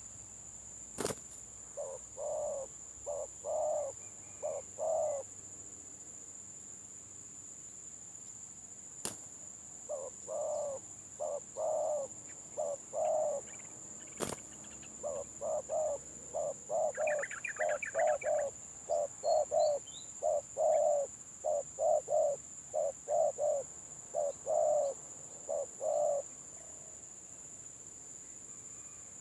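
Spotted doves (tekukur) cooing in the stuttering 'gagap' style: a short bout of quick clipped coo notes, then after a pause a long run of many such notes. A steady high whine runs underneath, and a brief higher twitter comes about halfway through.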